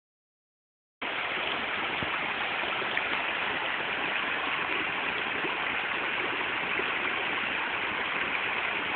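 Steady rush of flowing water, starting about a second in after silence.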